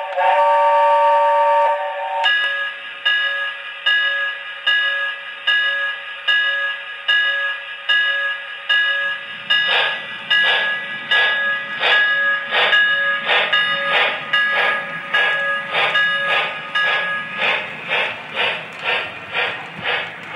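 Lionel LionChief Hogwarts Express O-gauge steam locomotive's onboard sound system: a whistle blast ends about two seconds in, then steam chuffs start slowly. Around nine seconds in the train gets moving, the running noise of the motor and wheels on the three-rail track joins in, and the chuffs quicken to about two a second.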